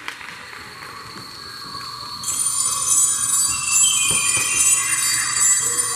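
Recorded show music over the speakers: a quiet opening, then about two seconds in a bright, shimmering jingle of high bell-like tones comes in and the music grows louder.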